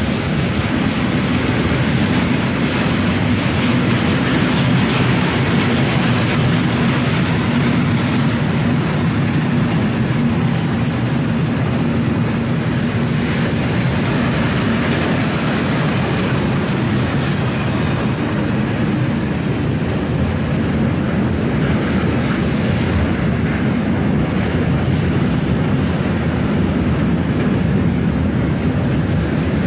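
Freight train of railway tank wagons rolling past close by, its wagon wheels running steadily on the rails.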